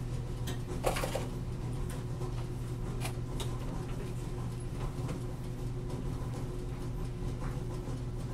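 A steady low mechanical hum, with a few faint, short clicks and knocks scattered through it.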